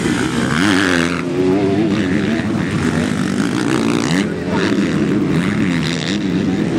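Motocross bike engines revving hard, the pitch repeatedly rising and falling as the bikes accelerate and back off around the track.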